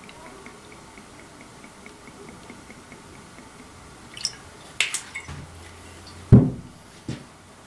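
Clear spirit poured from a glass bottle into a glass shot glass: a faint trickle with light regular ticks, about four a second, for the first few seconds. Sharp clinks follow around the five-second mark, then a heavy knock a little after six seconds, the loudest sound, and a lighter knock near the end.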